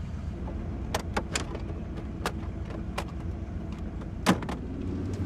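Low steady hum of a car's cabin at rest, with a handful of sharp clicks and taps, the loudest just after four seconds in.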